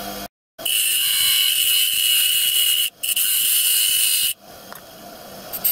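Abrasive cutting disc on a bench grinder cutting the end off a bicycle spoke: a loud, high-pitched grinding hiss for about two seconds, a brief break, then about another second and a half. It then drops away sharply as the cut is finished.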